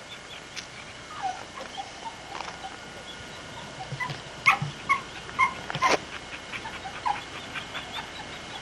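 A dog whimpering: short high whines, with a run of several in quick succession about halfway through.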